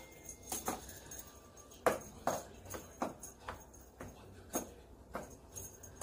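Irregular light taps and rustles, one or two a second: a fluffy feather wand toy brushing and tapping against a cardboard box while a cat swats at it.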